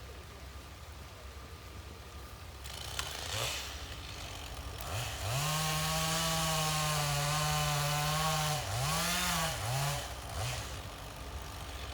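Forestry harvester working a log: the machine's engine under hydraulic load as the head's chain saw cuts, with a steady pitched run for about three seconds, then several quick dips and recoveries in pitch.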